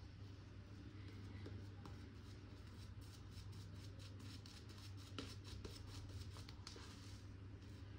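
Faint wet-shaving strokes on a lathered face, a run of quick scratchy strokes from about two and a half seconds in, over a low steady hum.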